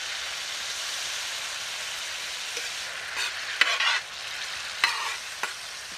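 Hot oil sizzling steadily on a large tawa. From about halfway through, a metal spatula scrapes and clinks against the pan several times as onions and tomatoes are stirred into the oil.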